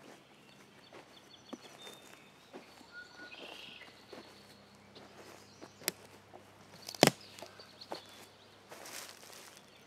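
Footsteps on a forest floor of moss and pine needles, with scattered soft crunches and clicks, and one sharp, much louder click about seven seconds in. Faint bird chirps in the background.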